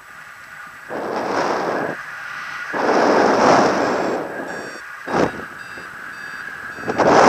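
Wind buffeting the microphone of a paragliding pilot's camera in flight, coming as four gusts of rushing noise, the last and loudest near the end. Underneath runs a steady high electronic beep tone from a flight variometer.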